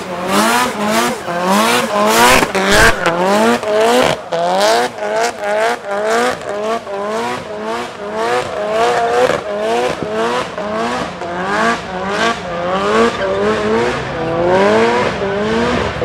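A car doing a burnout, its engine revved up and dropped again about twice a second while the spinning rear tyres squeal on the tarmac.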